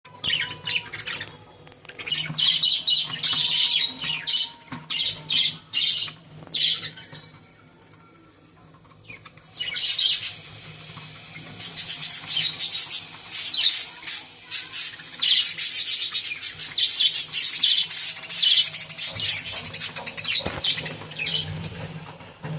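Lovebirds chirping and chattering in rapid, high-pitched calls, falling quiet for a couple of seconds about a third of the way in, then calling again almost without pause.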